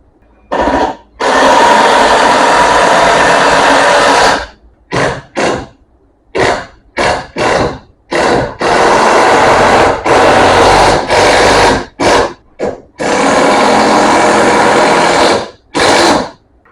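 Handheld electric power tool, drill-like, run in repeated bursts: three long runs of a few seconds each, separated by several short trigger pulls.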